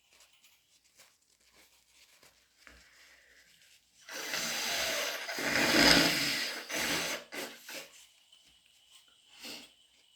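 A person with a head cold blowing a stuffy, snotty nose: one noisy blow of about three and a half seconds, loudest in the middle, followed by a short sniff near the end.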